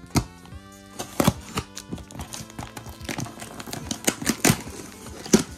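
A cardboard shipping box being opened by hand, an irregular string of sharp rips, taps and rustles, over steady background music.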